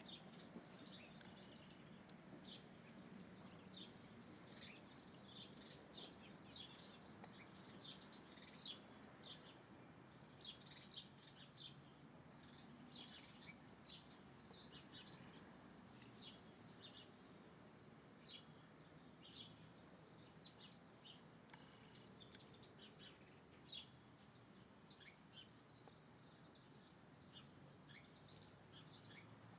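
A group of small birds chirping faintly and almost without pause while feeding, many short high chirps overlapping one another.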